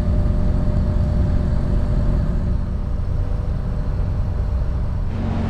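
Diesel engine of a Nordhavn 50 trawler yacht running steadily under way, a loud low drone with steady humming tones, heard in the engine room. The tone of the drone changes about five seconds in.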